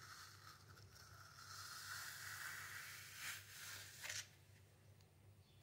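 Faint scraping of a metal ice cream scoop dragged through firmly frozen ice cream in a plastic tub, for about two seconds, then two short scrapes and near silence.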